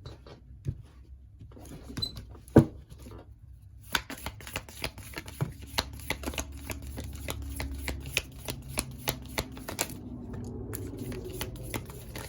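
A tarot deck being shuffled by hand: a sharp tap about two and a half seconds in, then a long run of quick card clicks and rustling from about four seconds in to about ten seconds.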